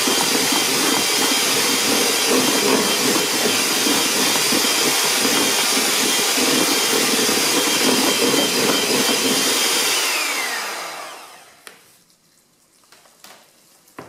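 Electric hand mixer whipping egg whites to firm peaks in a plastic bowl, its motor running with a steady whir. About ten seconds in it is switched off and winds down with a falling pitch, followed by a few light knocks.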